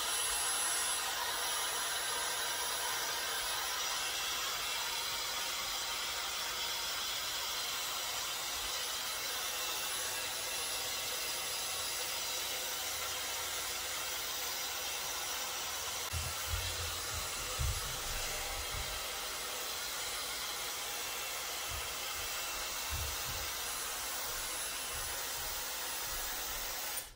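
Hair dryer with a diffuser attachment running steadily, a rushing blow with a thin high whine. A few low thumps come a little past the middle, and it switches off abruptly at the very end.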